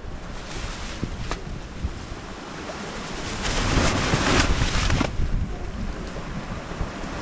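Wind buffeting the microphone and water rushing along a sailboat's hull as it runs under spinnaker, with a louder surge of wash about three and a half seconds in that lasts a second and a half.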